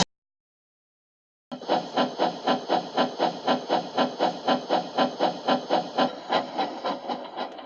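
A cartoon-style sound effect: a rhythmic pulsing noise, about three to four beats a second, that starts after a second and a half of silence and fades near the end.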